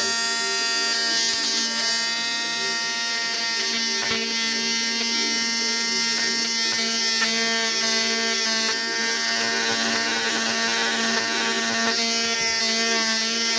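Ryobi detail sander with a 150-grit sheet running steadily against the inside corners of an oak cabinet door: an even electric buzz with a constant hum.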